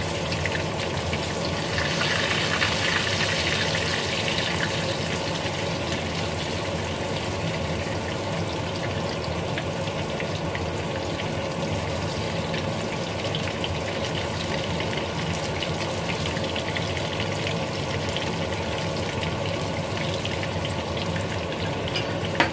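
Food frying in a frying pan with a steady sizzle and fine crackling, while it is stirred with chopsticks.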